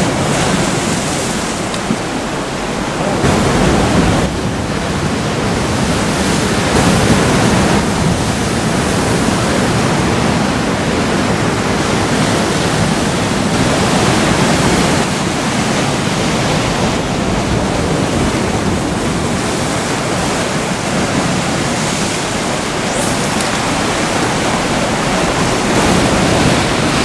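Sea surf washing against a rocky shore: a steady rush of breaking water that swells and eases every few seconds.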